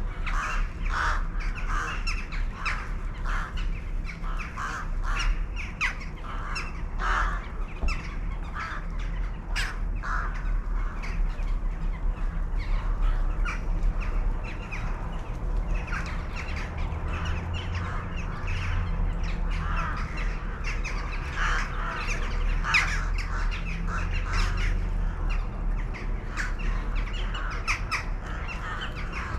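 A flock of birds calling, with many short harsh calls overlapping without a break, over a steady low rumble.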